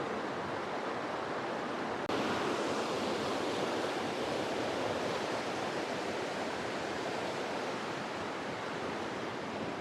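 Steady rush of fast-flowing creek water, with a small step up in level about two seconds in.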